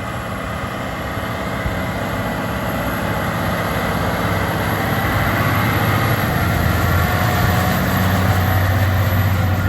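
Massey Ferguson 8S.205 tractor's six-cylinder diesel engine running steadily under load while pulling a plough, with a deep hum that slowly grows louder.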